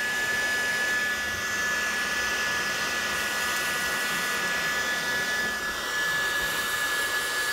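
Heat gun running steadily, blowing hot air through a flexible corrugated metal extension tube onto a heat-shrink hose clamp: an even rush of air with a thin steady whine.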